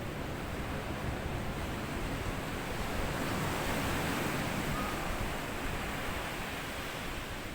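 Sea waves washing onto a sand beach, the surf swelling about three seconds in and easing off again.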